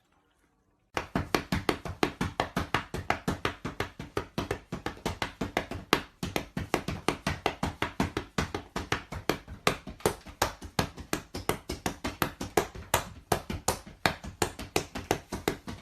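Rapid, steady tapping, several sharp taps a second, starting about a second in and keeping on without a break.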